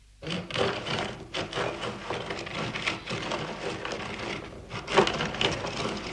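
Hand-cranked metal rotary drum grater grinding walnuts: a continuous, uneven dry rasping and crunching as the nuts are shredded against the turning drum. It starts abruptly just after the beginning.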